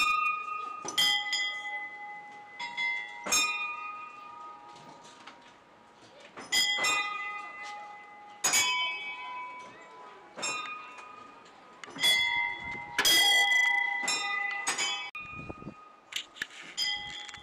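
Small bells on a row of spinning prayer wheels ringing. Several bells of different pitches are struck at irregular intervals of a second or two, and each one rings on briefly before fading.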